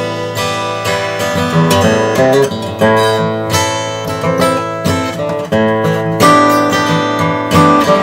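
Gibson Hummingbird acoustic guitar being strummed, playing chords with repeated string strikes; this is the guitar fitted with a Tusq saddle and a Mitchell's plate mate.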